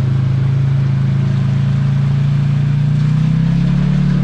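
Vehicle engine running loudly and steadily, its pitch climbing a little from about three seconds in as it revs up.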